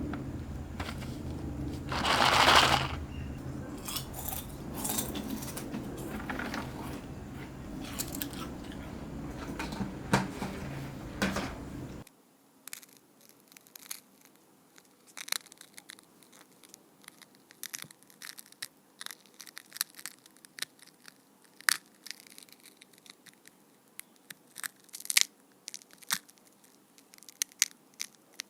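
Foley crunching and cracking standing in for an eggshell breaking as a chick hatches: a run of small sharp cracks and crinkles, with one louder, longer crunch a couple of seconds in. A steady low hum lies under the first twelve seconds and cuts off suddenly, after which the cracks come sparser against near quiet.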